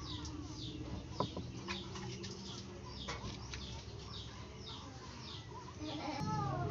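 A bird chirping over and over, short falling chirps a few times a second, over a low steady hum. A couple of light clicks come from hand tools on the metal cylinder head, the sharpest about a second in.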